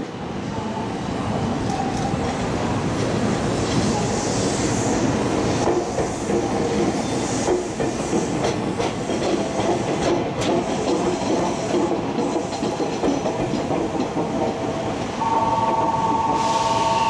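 Tokyu Deya inspection electric train running past on the rails: wheel-and-rail noise with a clickety-clack over the rail joints, building as it comes by. About fifteen seconds in, a steady high tone sets in and holds.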